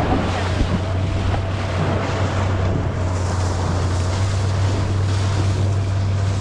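A boat's engine running steadily, with wind buffeting the microphone and rushing water from a rough sea.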